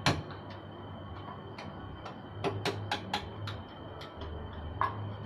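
Sharp clicks and taps of hand tools at work on a motorcycle: one at the start, a quick run of about five in the middle and one more near the end, over a faint steady low hum.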